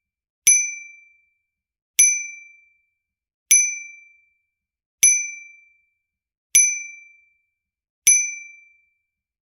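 Bicycle bell ringing in single dings: six identical strikes about a second and a half apart. Each is a bright ring that fades out in under a second.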